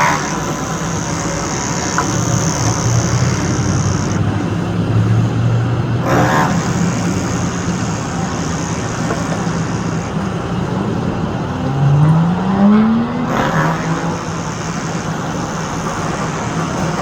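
Construction machinery engine running steadily, its pitch rising as it revs up about twelve seconds in. Three brief sharper sounds stand out over it, at the start, about six seconds in and near thirteen seconds.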